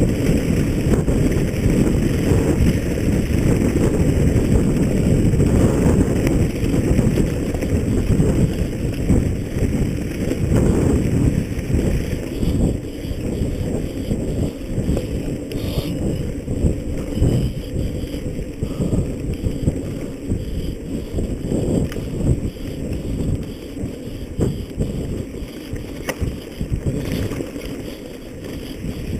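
Wind buffeting the microphone, loud and gusting, with scattered small knocks and rattles throughout; it eases off slightly near the end.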